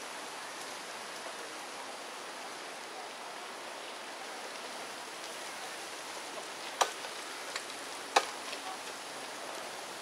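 A steady, even hiss of forest background noise, broken by two sharp clicks close to the microphone about seven and eight seconds in.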